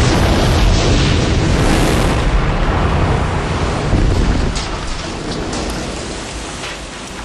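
Explosion sound effect: a sudden blast at the start, then a long deep rumble with a few scattered crackles, slowly dying away.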